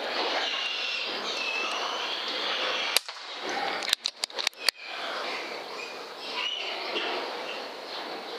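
Air rifle firing: a sharp crack about three seconds in, then a few quicker clicks about a second later, as rats are shot. Underneath is a steady hiss with faint short chirps.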